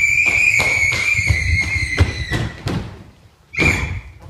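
Running footsteps thudding on a stage floor, about three a second, under a loud, steady, high-pitched tone that lasts about two seconds and returns briefly near the end.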